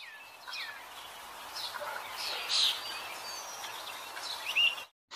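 Birds chirping and calling over a steady hiss of outdoor ambience. The calls are short and several fall in pitch, with one louder call about halfway through. The sound cuts off suddenly near the end.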